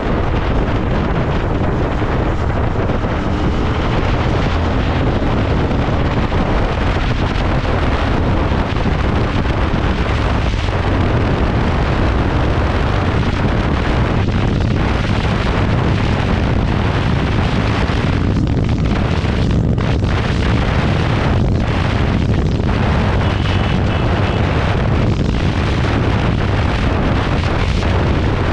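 Heavy, steady wind buffeting on the microphone of a Royal Enfield Continental GT 650 ridden at high speed, with the bike's 648 cc parallel-twin engine running underneath.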